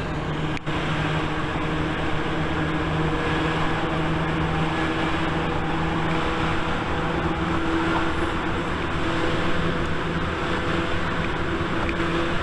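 Tokyu 8500 series electric train running, heard from inside a passenger car: a steady rumble of wheels and motors with a constant hum. There is a momentary drop in the sound about half a second in.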